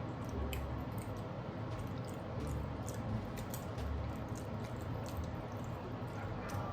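Close-miked chewing of food, with many small wet mouth clicks and smacks scattered throughout.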